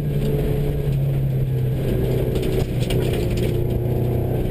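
Subaru rally car's flat-four engine running at a steady, unchanging pitch, heard from inside the cabin over the rumble of tyres on gravel.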